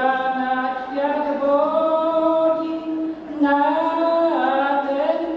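An elderly man singing a Polish funeral song a cappella: one voice in slow, long-held notes that slide from one pitch to the next.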